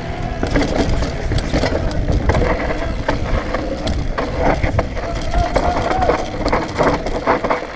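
Mountain bike descending a dirt trail at speed: wind rushing over the camera microphone, tyres rolling over dirt and roots, and the bike clattering with many sharp rattles and knocks over bumps.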